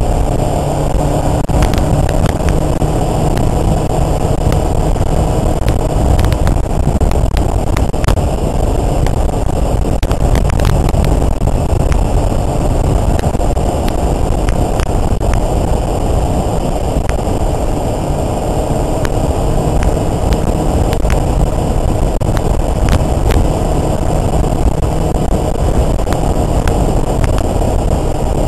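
Sport motorcycle riding at speed, heard from on the bike: a steady rush of wind on the microphone over the engine's drone, with scattered small knocks and clicks.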